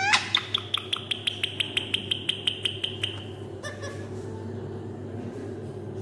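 Rose-ringed parakeet giving a short rising whistle, then a fast run of sharp, high chattering notes, about six a second, that fades out after about three seconds.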